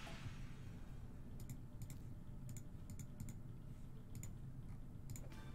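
Light clicks of a computer mouse, often in quick pairs, about a dozen of them from about a second and a half in, over a faint steady low hum.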